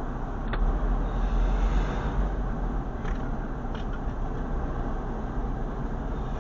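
Steady engine and tyre noise of a car driving on a highway, heard inside the cabin through a dashboard camera's microphone. The noise swells for a second or so about a second in, and a few faint short clicks come through.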